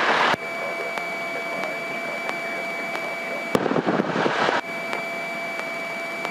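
Aircraft radio and intercom line noise: a steady hiss with two thin whining tones. A louder rush of static, like a keyed transmission with no voice, cuts off just after the start and comes back for about a second around three and a half seconds in.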